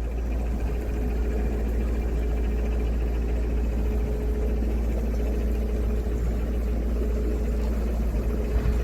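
Narrowboat engine running steadily while cruising: an even low drone with a faint steady hum above it.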